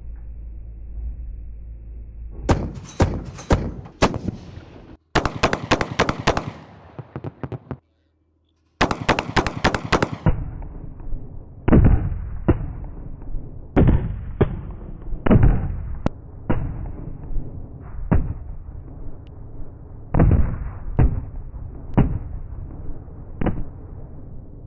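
Mk44 Bushmaster II 30 mm chain gun firing: several short rapid bursts of a few shots each, then single shots and pairs spaced about a second apart.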